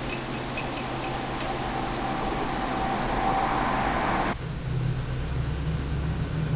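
A steady rushing noise with a faint tone that grows louder, then about four seconds in an abrupt change to the steady low hum of a narrowboat's diesel engine running.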